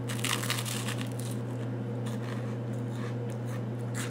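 Crunching bite into a slice of jam-covered toast, then chewing. The crunch is densest in the first second or so and thins to sparser crackles, over a steady low hum.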